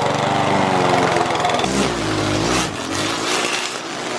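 Small petrol engine of garden power equipment running and revving up and down, changing character about a second and a half in.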